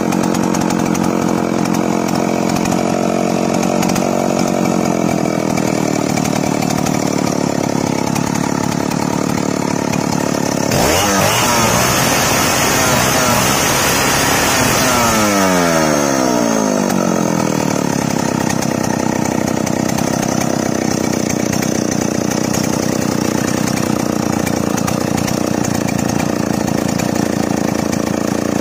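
Newly assembled two-stroke chainsaw engine running on test, idling while its carburettor screws are being adjusted. About 11 s in it is revved hard to full throttle for about four seconds, then the revs fall away smoothly back to a steady idle.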